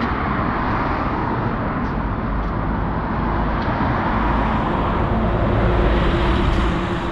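Road traffic on a city street: a steady rumble of passing cars, swelling through the middle, with a city bus passing close by in the second half and adding a steady engine hum.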